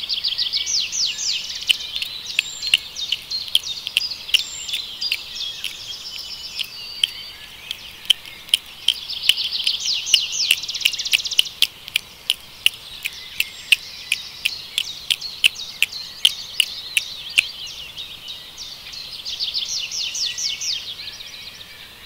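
Songbirds singing in bouts of fast, high, repeated trilling notes, with a run of sharp clicks throughout, most frequent in the middle.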